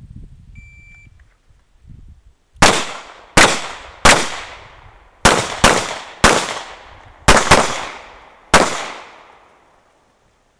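An electronic shot timer's start beep, then nine shots from a CZ 75 SP-01 pistol over about six seconds, some fired as quick pairs, each shot ringing out in a short echo.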